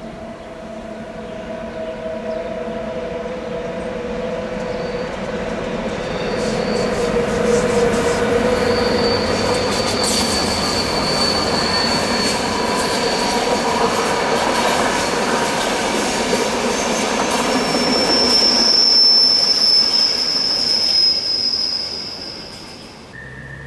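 A passing train's wheels squeal against the rails in a tight curve over the rolling noise of the train. A high steady squeal starts about six seconds in, shifts to a higher pitch around eighteen seconds, and the sound fades near the end.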